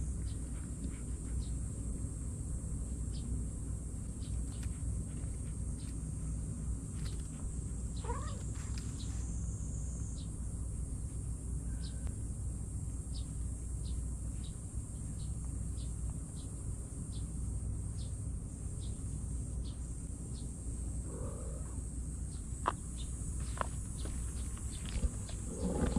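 Outdoor ambience with a steady low rumble and high hiss, many short high chirps, and a brief rising kitten mew about eight seconds in, with a few fainter calls later on.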